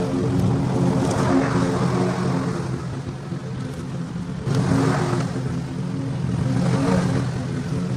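Small petrol engine running steadily at high speed, with a hiss that swells and fades every second or two over its drone.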